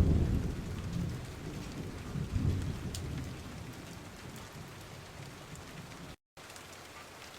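Rain falling steadily with rolls of thunder rumbling, loudest at the start and again about two and a half seconds in, then fading away. The sound cuts out for a split second near the end.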